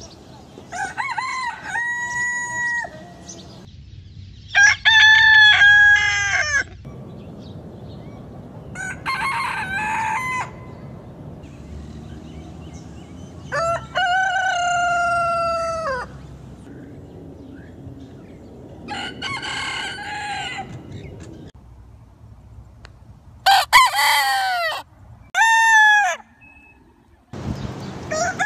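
Roosters crowing one after another, about eight crows in all, each a cock-a-doodle-doo of one to two and a half seconds that holds its pitch and drops at the end. The longest comes at about a third of the way in, and two short, loud crows follow in quick succession near the end. The background hiss changes between crows, as different recordings are cut together.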